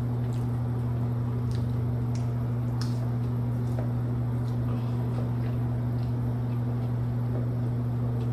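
A steady low hum with a fainter higher tone above it, and scattered faint clicks and smacks from someone chewing fries.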